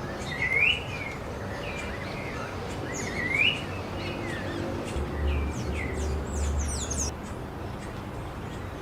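Birds calling: several short rising whistled notes, with a cluster of quick, thin, high falling chirps in the middle, over a low rumble between about five and seven seconds in.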